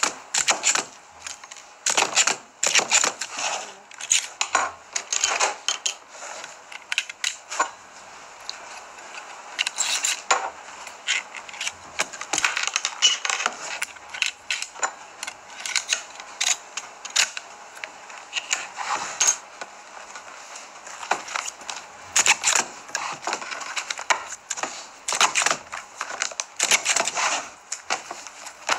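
Paper sheets rustling and shuffling as a stack is handled on a desk, with frequent sharp clacks and knocks of a small metal office tool, coming irregularly, several a second at times.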